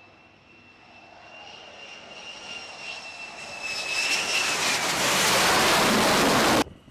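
An F-35 fighter's jet engine as the jet comes in to land on a carrier deck. A steady high whine grows louder over several seconds into loud, full jet noise as the aircraft passes close, then cuts off abruptly near the end.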